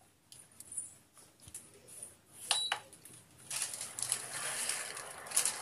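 Light clicks and clinks against a steel cooking pot as a block of instant noodles is put into the water, with a sharper pair of clicks about two and a half seconds in. From about three and a half seconds in, a steady rustling hiss sets in.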